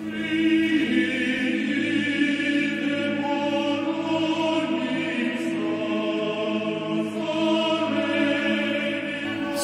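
A choir singing slow, long-held chords that shift every few seconds.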